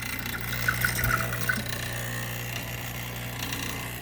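Saeco HD8775 espresso machine's pump buzzing steadily as it runs the descaling cycle, pushing citric acid solution through the machine.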